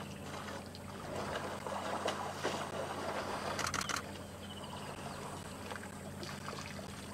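African elephants wading and drinking in shallow water, with water sloshing and splashing around their legs and trunks, loudest in the middle. A quick burst of camera shutter clicks comes just before the middle, over a steady low hum.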